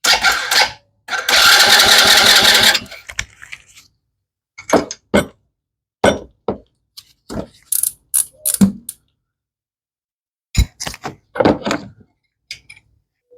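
Small engine of a kids' Chinese ATV cranked over for about two seconds on its starter, with a shorter burst just before, while spark is being tested. A series of short clicks and knocks follows.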